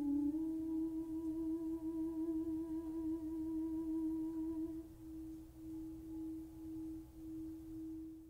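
Singing bowl ringing with a sustained, slightly wavering tone. About five seconds in its overtones fall away and the tone pulses as it fades.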